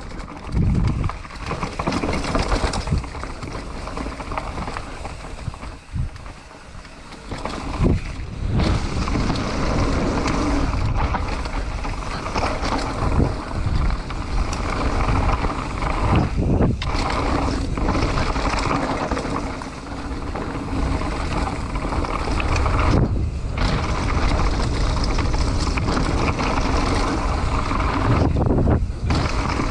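Mountain bike descending a dirt trail: tyres and bike rumbling over the rough ground while wind buffets the camera's microphone, with a few brief dips in the noise.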